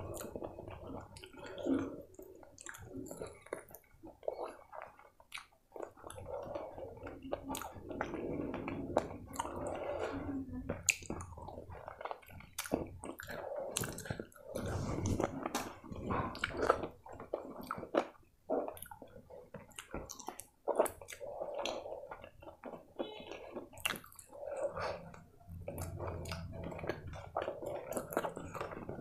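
Close-miked eating of spicy chicken curry with rice by hand: wet chewing and squishing, with many short, sharp mouth clicks and smacks as meat is bitten and chewed.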